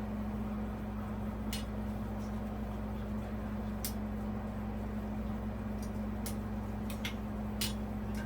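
A few sharp metallic clicks of small screws and a screwdriver against a ceiling fan's motor housing, scattered every second or two, over a steady low hum.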